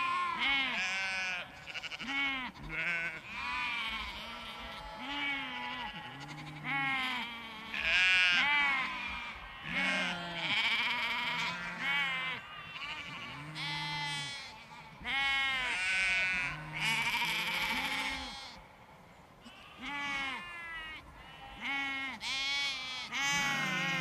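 Large flock of sheep and lambs bleating, many calls overlapping, low bleats mixed with much higher-pitched ones, with a brief lull about three-quarters of the way through.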